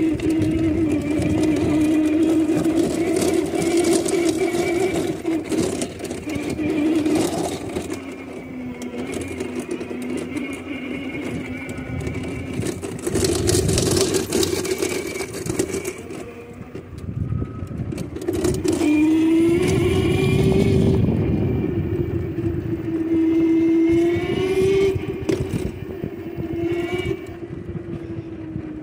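A go-kart's motor running while driving, a steady whine whose pitch drifts with speed and rises twice in the second half. Patches of rough noise from the ride come and go.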